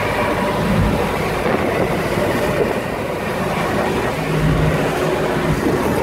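Motorboat running at speed over choppy water: a steady rumble of engine, rushing water and wind buffeting the microphone, with a couple of low thumps from the hull meeting the chop.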